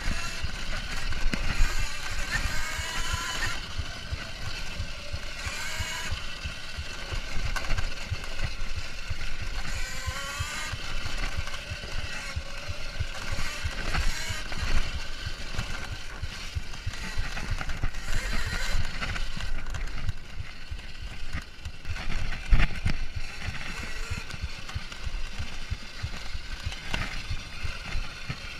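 Whine of a Kuberg Ranger 14 kW electric off-road motorbike's motor, rising and falling with the throttle, over low rumbling and knocks from the bike bouncing along a rough dirt trail; one sharp knock about two thirds of the way through.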